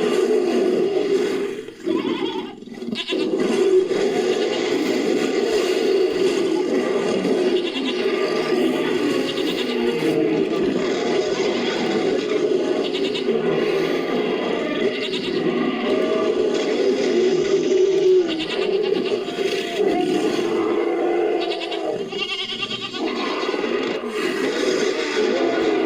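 Designed creature vocalizations mixed from animal recordings, with goat and sheep bleats to the fore. The calls are nearly continuous, with brief breaks about two seconds in and near the end.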